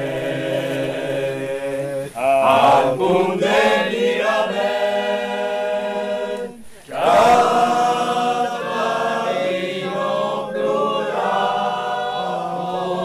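A small group of voices singing a traditional Occitan song a cappella, in unison with long held notes. The singing breaks off briefly just past halfway, then the voices come back in strongly.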